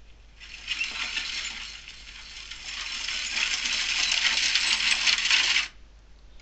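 Recorded horse-and-carriage-arriving sound effect played back from a show-control cue, with clinking sounds. Its volume is pulled down and brought back up, growing loudest toward the end before playback is stopped abruptly.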